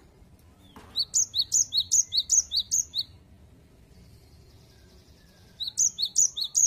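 Cinereous tit (gelatik batu) singing its 'wu-cit wu-cit' song, a quick run of alternating low and high whistled notes, about five pairs in two seconds. After a pause, a second run starts near the end.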